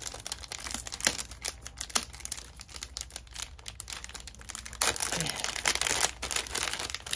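Packaging of a new phone case crinkling and rustling as it is opened by hand, with many sharp crackles and a louder, denser rustle about five seconds in.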